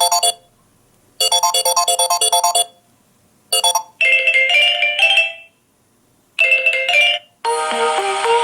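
Stock Samsung Galaxy A7 (2018) ringtones playing: short electronic melodies of bright chiming notes, each phrase ending and repeating after a brief silent gap. A different, fuller tune starts near the end.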